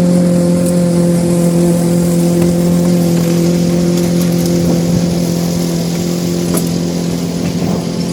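Toro Smart Stow self-propelled gas push lawnmower engine running at a steady speed.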